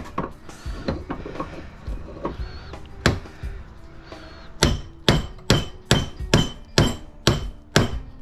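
A light claw hammer striking a small light-fixture transformer clamped in a bench vise, pounding it to break the core loose from the copper winding. A few scattered knocks at first, then from about halfway a steady run of sharp blows, about two a second, each with a brief metallic ring.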